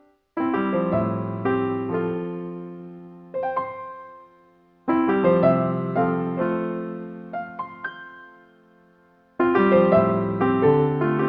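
Background piano music: phrases of chords and melody notes that each begin suddenly and die away, three times.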